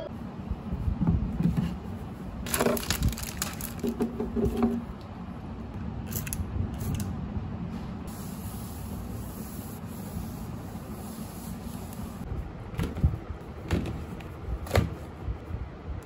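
Scattered knocks, clicks and rubbing from objects being handled on a desk, over a steady low room hum; a cluster of knocks about three seconds in and a few sharp knocks near the end.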